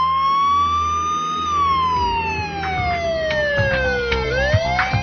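Police car siren wailing: one slow rise and fall in pitch, then starting to climb again near the end, over a low rumble.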